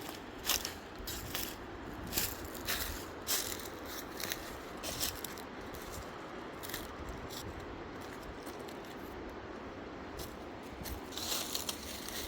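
Footsteps crunching and scraping through dry undergrowth while walking down a rough hillside. The steps are irregular, thin out in the middle and pick up again near the end.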